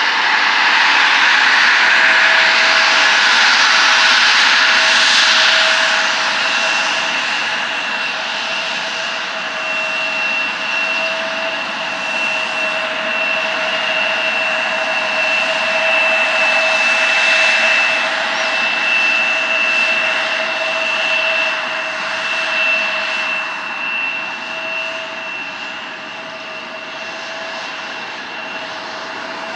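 Embraer 175 jet airliner taxiing past, its two GE CF34 turbofans running at taxi power: a steady high whine over a broad engine rush. It is loudest in the first few seconds and eases off near the end as the tail goes by.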